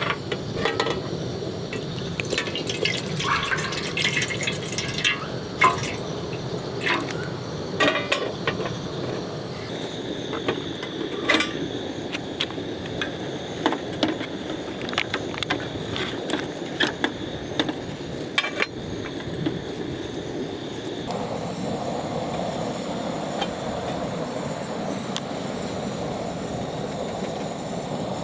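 Small clinks and knocks of camping gear being handled, many short sharp ones, over a steady wash of water-like noise that grows fuller about two-thirds of the way through.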